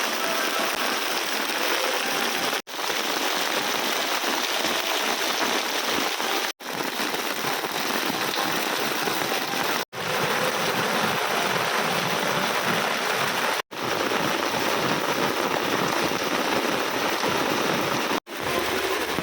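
Heavy rain pouring down in a steady, dense hiss. It cuts out for an instant five times, a few seconds apart, and comes straight back each time.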